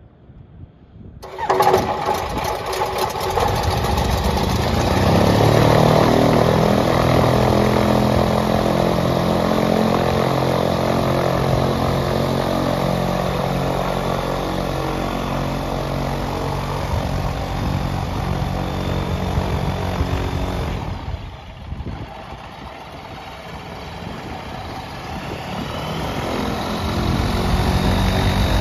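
The Evolution Revo trike's Rotax flat-four engine and pusher propeller start up suddenly about a second in and catch at once. The engine then settles into a steady run at idle. Its sound drops off about two-thirds of the way through, then builds again toward the end as the trike taxis away.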